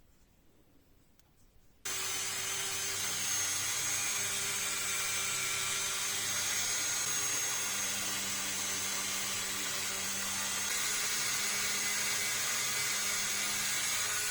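Dremel rotary tool with a polishing attachment running steadily at high speed, buffing a small steel pistol part with metal polish; it starts suddenly about two seconds in, with a steady high whine over the motor's noise.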